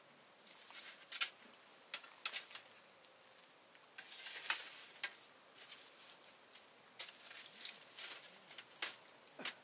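Irregular rustling and light clicks, a few at a time with short gaps between.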